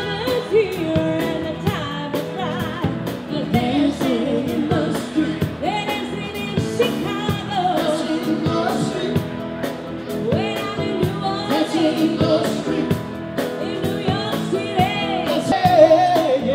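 Live band playing on stage: singing over a drum kit beating a steady rhythm, with the full band behind.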